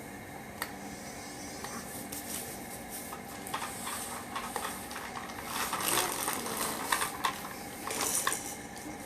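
Battery-powered remote-control toy scooter driving about: its small electric motor whirring steadily, with plastic clicking and clattering, louder in a few stretches.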